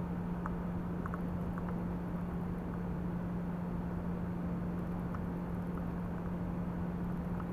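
Steady mechanical hum with a constant low tone over a noisy rumble, and a few faint ticks scattered through it.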